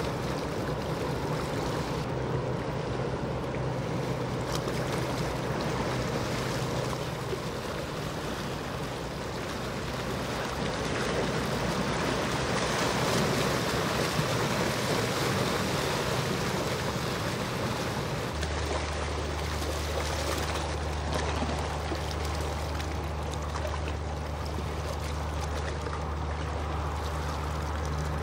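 Low, steady engine drone of passing ships over the rush of water and wind. About two-thirds of the way through, the drone changes abruptly to a deeper, stronger one.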